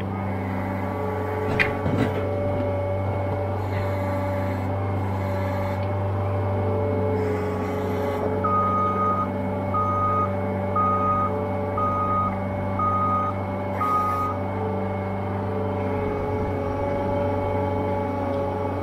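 Loader tractor's diesel engine running steadily as it drives, with a short knock about two seconds in. Midway through, a backup alarm beeps six times, about once a second.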